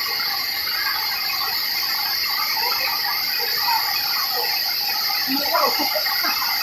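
Steady high-pitched drone of insects over the even rush of a waterfall, with faint voices in the background.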